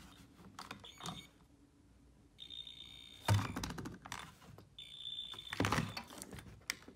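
A smoke alarm sounds faintly from another part of the house in two high-pitched blasts, each about a second long and a second and a half apart. These are the aging upstairs detectors barely going into alarm. Thuds and clicks of nearby handling sound around them, the loudest two just as each blast ends.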